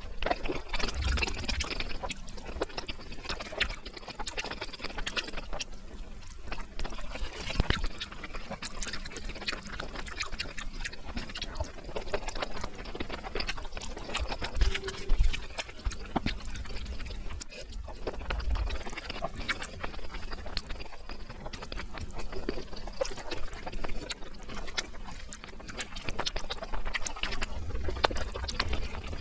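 Eating sounds sped up fourfold: rapid wet chewing and mouth smacking of someone eating brinjal (eggplant), a dense stream of quick clicks.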